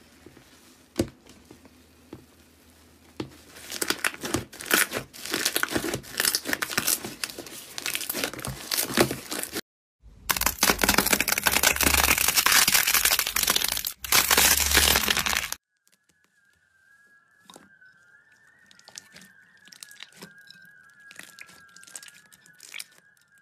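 Slime being squeezed and stretched by hand, giving dense crackling and crinkling, loudest in the middle with abrupt cuts between clips. Near the end it drops to soft scattered clicks under a faint high wavering tone.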